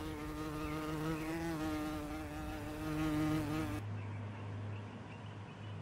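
A flying insect buzzing in a steady, slightly wavering hum, which stops abruptly about four seconds in, leaving only a faint low hum.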